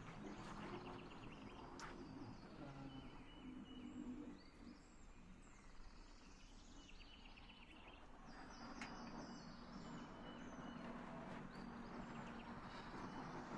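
Faint outdoor ambience with small birds chirping and trilling now and then over a low, steady background hum.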